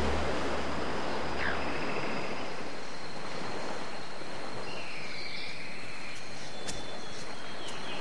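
Steady wash of ocean surf, with a few short bird calls around the middle. A low hum fades out in the first two seconds.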